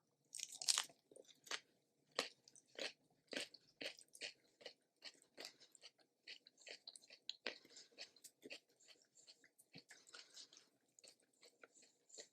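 A person chewing food with crisp, crunchy mouth sounds. There is a louder crunch about half a second in, then steady chewing at roughly two chews a second.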